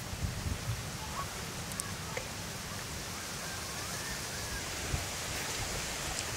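Outdoor rural ambience: a steady hiss over a low, choppy rumble like wind on the microphone, with a few faint bird calls in the middle.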